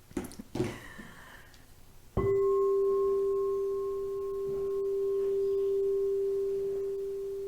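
A singing bowl struck about two seconds in, ringing on as one steady mid-pitched tone with a fainter higher overtone, slowly swelling and fading in loudness. A few soft knocks come just before the strike.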